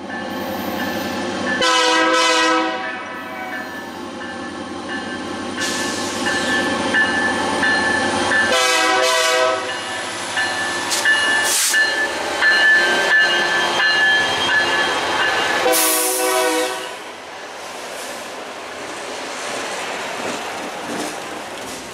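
Diesel freight locomotive sounding its horn in three loud blasts of about a second each, several seconds apart, over the locomotive's steady running. After the last blast the freight cars roll past with steady wheel-on-rail noise.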